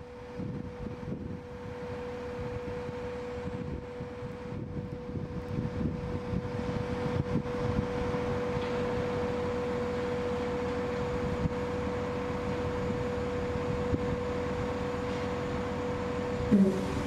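Mobile crane running while it holds a lifted steel bridge section, a steady high whine over a low rumble; a knock near the end as the whine drops away.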